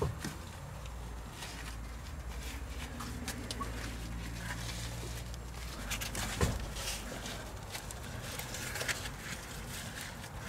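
Faint handling noise of gloved hands working a greasy rubber CV boot over a car driveshaft: soft rubbing and light clicks, with a sharper knock right at the start and another about six and a half seconds in, over a low steady hum.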